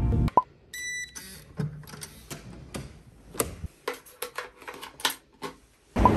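A short electronic beep about a second in, then scattered clicks and plastic handling noises as a hotel key card is slotted into the room's power-switch holder.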